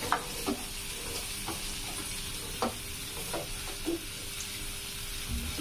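Spice masala sizzling in a pan on a gas stove as chopped onion is tipped in and scraped off a steel plate with a spoon, with a few short clicks through the steady sizzle.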